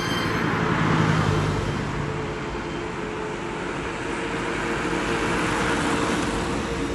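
Road traffic going by on a damp road: a car passes with tyre hiss and engine hum, loudest about a second in, and a minibus drives past near the end.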